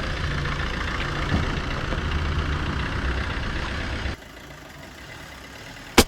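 A machine running steadily, a low hum under a broad rushing noise, cutting off abruptly about four seconds in and leaving a quieter background hum.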